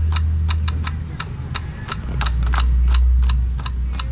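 Sharp, evenly spaced percussion beats, about three a second, keeping time for a seated Samoan sasa group dance, over a steady low rumble.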